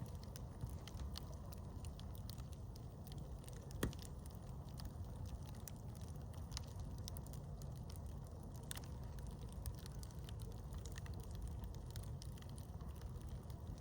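Campfire crackling with scattered sharp pops, one louder snap about four seconds in, over a low steady rumble.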